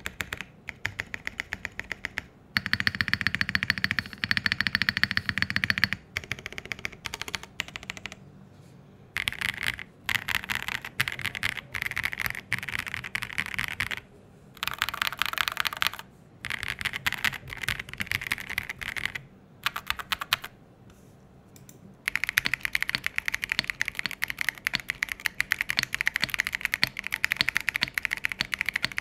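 Typing sound test on an MKC75 aluminium-case 75% custom mechanical keyboard with a polycarbonate plate: fast runs of clacky keystrokes in bursts, broken by several short pauses, then steady continuous typing over the last third.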